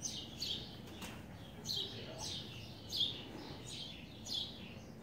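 A small bird chirping: short, high chirps that fall in pitch, repeated evenly a little more than a second apart, one of them doubled.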